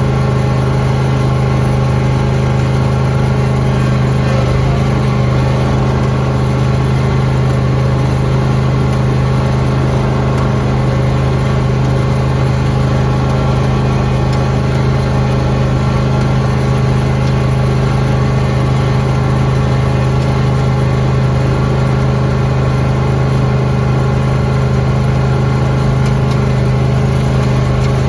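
Lawn tractor engine running steadily at constant speed while plowing snow, with no change in pitch or level.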